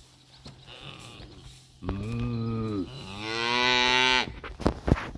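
A black-and-white dairy cow mooing once, a long two-part call that falls, then rises and grows louder before it stops. A few sharp clicks follow near the end.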